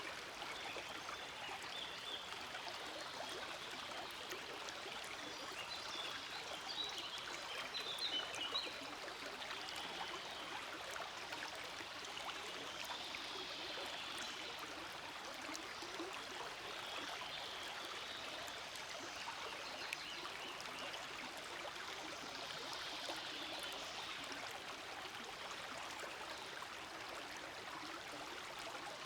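A small forest stream flowing over stones, a steady rushing and babbling with brighter splashy trickling that swells about six to nine seconds in.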